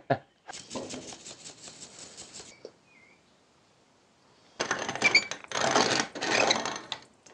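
Dry cracked corn rattling and hissing against stainless steel as coarse grits are handled in a sieve and bowl. It comes in two spells with a pause between; the second is louder and has a few short metallic squeaks.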